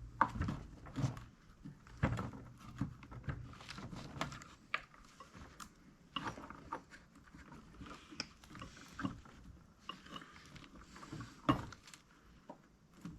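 Steel parts of a VW rocker arm assembly clicking and clinking as the retaining pin is worked back onto the rocker shaft by hand, in irregular light knocks with a few sharper strikes.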